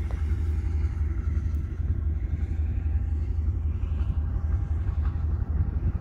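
A steady low rumble with a faint hiss above it.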